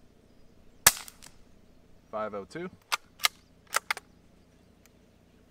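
A single shot from a Savage Mark II bolt-action .22 rifle firing an Aguila Super Colibri round, one short sharp crack about a second in. About two seconds later, four short metallic clicks as the bolt is cycled to chamber the next round.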